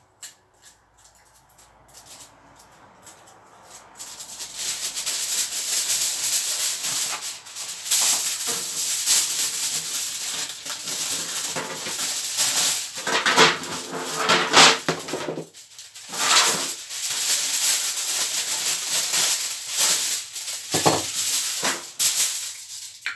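Aluminium foil crinkling and rustling as a sheet is pulled from the roll and handled, starting about four seconds in and going on with short breaks.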